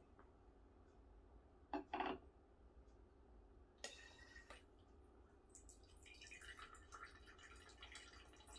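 Two short glass knocks about two seconds in, then, from about six seconds, a faint irregular trickle as wine is pushed by nitrogen gas out of a Coravin Model Three's needle spout into a wine glass.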